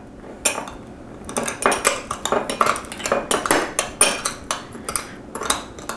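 Back of a metal spoon grinding and clinking against a small glass bowl, crushing coriander seeds and peppercorns. Irregular scraping strokes and clinks, several a second, begin about half a second in.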